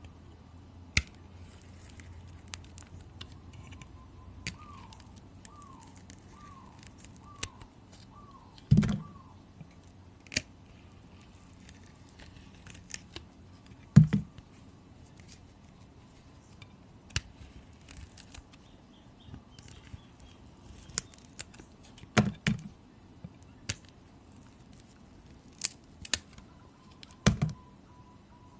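Bar of soap being cut with a blade: scattered crisp clicks and cracks as the blade goes through, with a handful of louder, heavier knocks.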